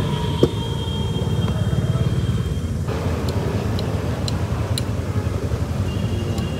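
Steady low rumble of road traffic, with one sharp knock about half a second in and a few light clicks later.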